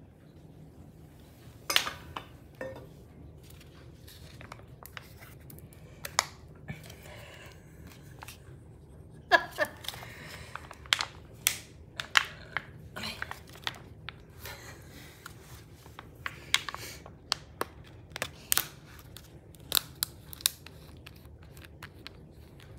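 Plastic squeeze pouch of cat pudding being handled: irregular sharp crinkles and clicks, a dozen or so louder ones scattered over the stretch.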